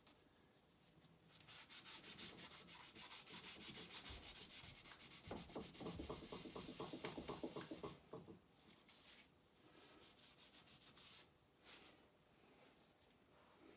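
Rapid, evenly repeated scraping strokes that stop after about six seconds, with a squeaky, pulsing tone joining in for the last few seconds of the scraping.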